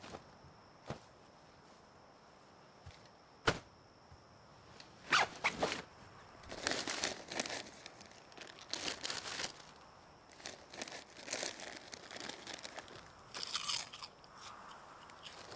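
A crinkly plastic food packet being handled and torn open, in dense irregular bursts of crackling from about five seconds in, after a few sharp snaps earlier on.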